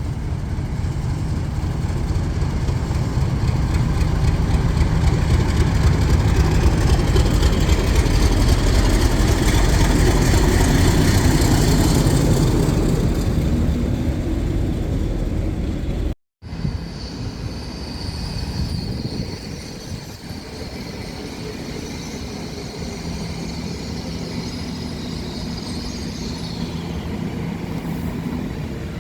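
A train passing close by on the main line: a heavy rumble of engine and wheels builds, holds at its loudest for several seconds, then fades. After a sudden cut, another train is heard with a lower rumble and a steady high-pitched whine that stops shortly before the end.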